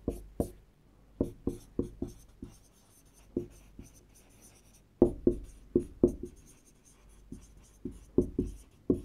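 Marker pen writing on a whiteboard: a string of short strokes and taps as letters are written, in irregular groups with brief pauses between them.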